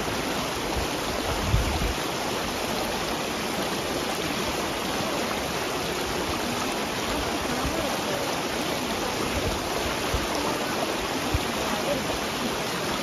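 Shallow river water running steadily over stones and gravel.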